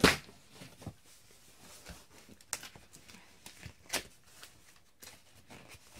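A cardboard delivery box being opened by hand: a sharp crack right at the start, then scattered light clicks and rustles as the flaps and cardboard are handled.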